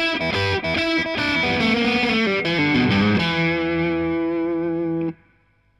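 Outro music with a distorted electric guitar: a short run of changing notes, then a chord held steady that cuts off suddenly about five seconds in.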